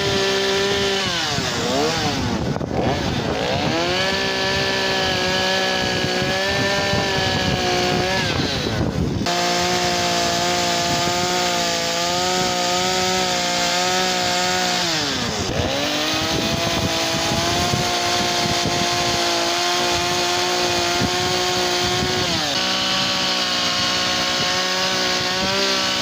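Chainsaw running at high revs while carving cuts into a log, its engine pitch dipping and recovering about four times as it works.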